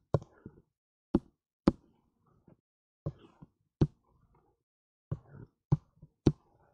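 Sharp clicks and knocks from handling the computer's pointing device as an on-screen image is dragged about. There are about eight of them, at uneven intervals of half a second to over a second.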